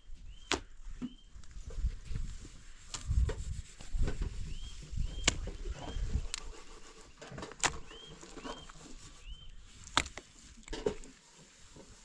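Hands scraping and scooping loose earth and stones, with irregular clicks and knocks as stones and clods are picked up and set down. Short high chirps recur now and then in the background.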